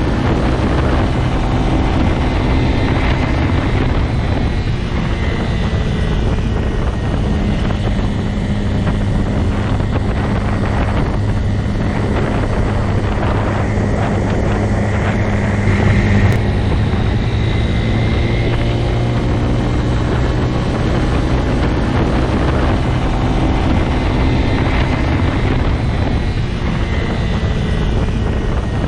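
Motorcycle engine running at a steady speed, its note holding even, with a brief louder swell about halfway through. Wind noise on the microphone runs under it.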